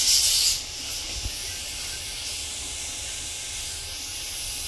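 Dental suction hissing steadily, with a louder burst of hiss in the first half-second.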